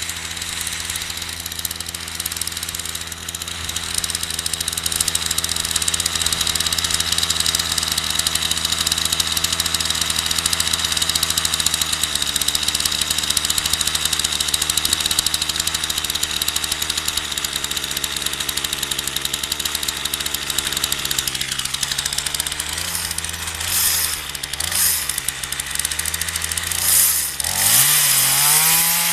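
Partner 340S two-stroke chainsaw engine idling steadily, then its speed wavers and it is revved up and down near the end.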